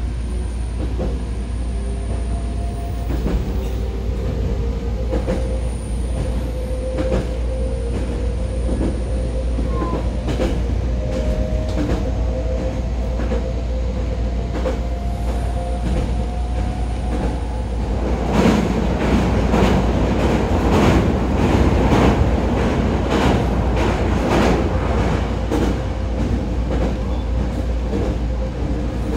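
JR Kyushu 819 series DENCHA electric train running: a steady rumble of wheels on rail, with a faint motor whine slowly rising in pitch through the first half. About two-thirds of the way in comes a louder run of rail-joint clacks, roughly one to two a second.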